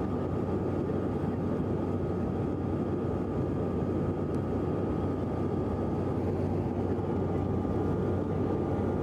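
Steady drone of an airliner cabin in flight: engine and air noise with a low hum and a faint high whine.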